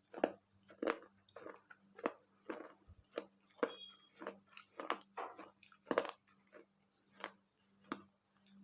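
Close-up crunching and chewing of water-soaked baked clay from a small clay pot and saucer, sharp crunches coming evenly about one and a half times a second.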